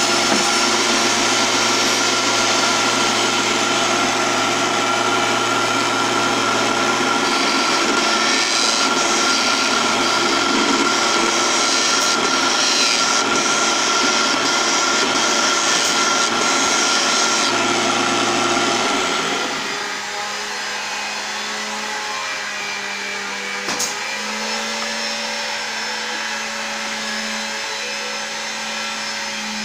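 Small mini wood lathe's motor running with a steady hum while the spinning wooden workpiece is sanded by hand, which adds a hiss through the middle of the stretch. About two-thirds of the way through, the sound gets quieter and the hum changes pitch.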